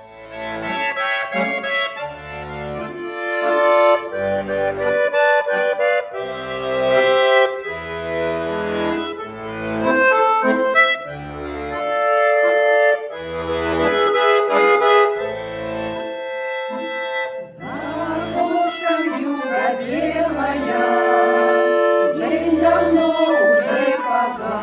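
Accordion playing a folk-song introduction: a melody over a steady left-hand accompaniment of alternating bass notes and chords. About three-quarters of the way through, a women's folk ensemble begins singing over the accordion.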